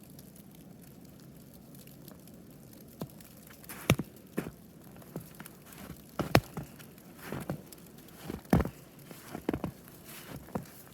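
Footsteps crunching through heavy snow, starting about three seconds in and going on at roughly one step a second.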